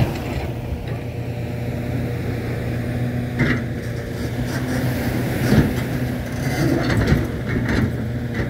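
Construction machinery running steadily close by, a continuous low engine hum, over the wash of small waves on the beach, with a few short knocks.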